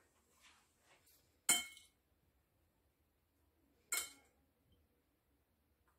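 A metal spoon clinks against a ceramic plate while scooping chopped hard-boiled egg: two sharp clinks, about a second and a half in and again near four seconds.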